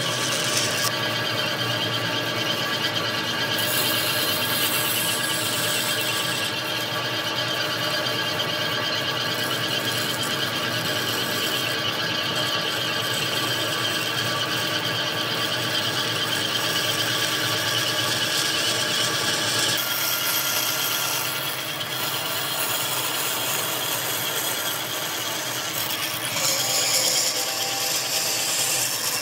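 Power tool running steadily on wood with a constant whine; a high hiss drops out and comes back several times as the tool's contact with the wood changes.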